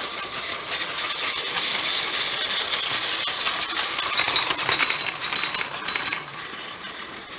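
Plarail toy train running on plastic track, a dense clicking rattle that builds to its loudest about four to five seconds in and then dies down.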